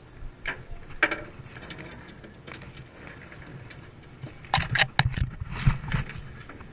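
Spinning reel (Shimano Sienna 4000FD) being cranked, with a light mechanical clicking. About four and a half seconds in, a quick run of sharp slaps and knocks on the deck as the landed scup flop about.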